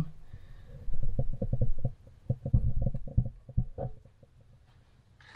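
A run of low thumps, bumps and rumbling, mostly between about one and four seconds in, from a handheld camera being moved and knocked about, then quieter.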